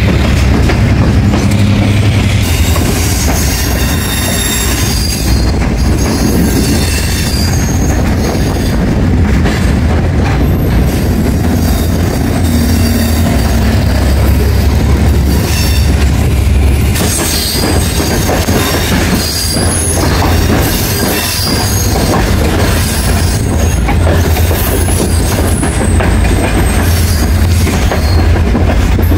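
Passenger train heard from aboard a moving carriage: a steady heavy rumble of the wheels on the track with clacks, and high-pitched wheel squeals that come and go, more often in the second half.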